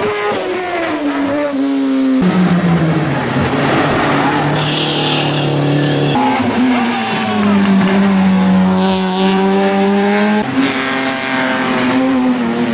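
Racing car engines running at high revs through tight bends, one car after another, with abrupt cuts between them about two, six and ten and a half seconds in. Each engine note rises and falls as the car lifts off, changes gear and accelerates away.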